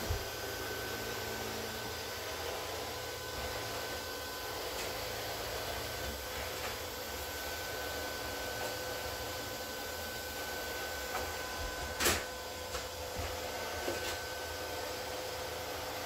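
Neato D7 robot vacuum running: a steady hum with a thin high whine, and a few light clicks, the loudest a sharp click about three-quarters of the way through.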